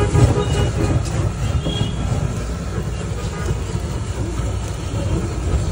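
Handheld butane torch on a spray can burning with a steady, rumbling rush of flame as it is played over cheese-topped clay-cup pizzas.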